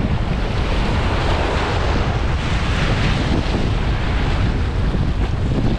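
Whitewater rapid rushing and churning around a kayak's bow, a loud steady rush of moving water heard close up.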